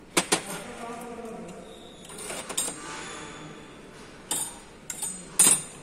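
Thin steel disc clinking against metal as it is handled, with about five sharp metallic knocks. The first knocks leave a short ringing tone, and the loudest knock comes near the end.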